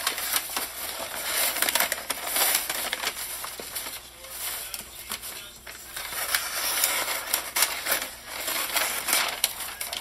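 Wrapping paper rustling and crinkling as it is handled, with scissors cutting through the paper.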